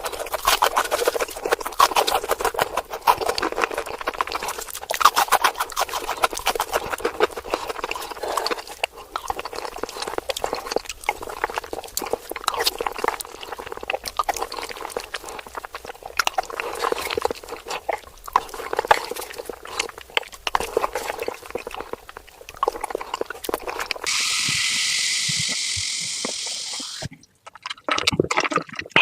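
Close-miked eating sounds sped up to four times speed: a dense run of rapid wet chewing, smacking and crunching clicks. Near the end this gives way to a steady hiss for about three seconds, which cuts off into a brief silence before the chewing resumes.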